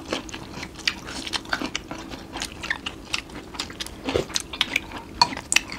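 Close-miked chewing and mouth sounds of people eating: many small irregular clicks, smacks and crunches.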